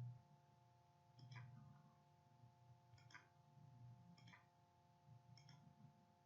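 Near silence: a faint steady electrical hum with soft clicks about once a second.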